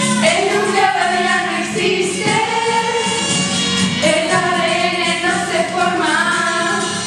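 A song: several female voices singing a melody together over a backing track with a steady low note.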